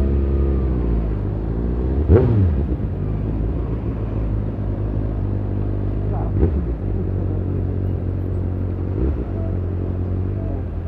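Road-vehicle engine running with a steady low drone, its revs easing off at the start and climbing again near the end. Three brief sharp sounds come about two, six and nine seconds in.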